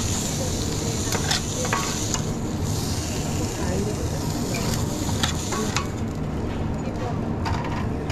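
Food sizzling in a hot pan, a steady hiss, with a utensil stirring it and clicking against the pan a few times, over a steady low hum.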